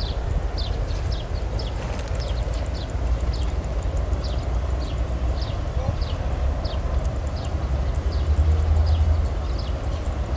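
Repeated short, high, falling chirps from a small animal, about two a second, over a steady low rumble that swells near the end.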